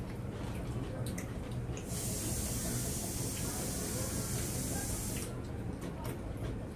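A steady high hiss starts about two seconds in and cuts off abruptly about three seconds later, over a low steady hum.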